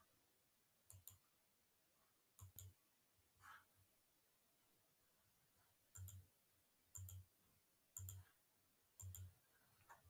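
Near silence broken by faint, short clicks: a few scattered early, then about one a second from six seconds in.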